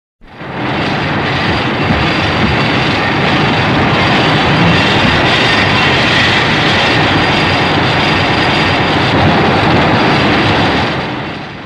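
A sound effect from the 1954 Godzilla film: a loud, steady rushing hiss with no clear pitch. It starts abruptly, holds for about eleven seconds and fades out near the end.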